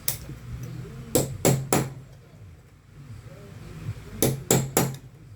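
Hammer striking the four small sheet-metal locking tabs of an Arno fan motor's bushing housing to set them firm: one sharp metallic tap, then two quick runs of three taps each.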